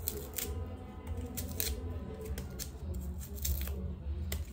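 Kitchen knife blade scraping and nicking the dry papery skin off a red onion: short, irregular, crisp scrapes and snips, over a low steady hum.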